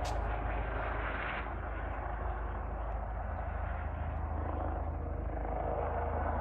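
Helicopter patrolling power lines, its rotor and engine making a continuous drone that thins slightly about a second and a half in.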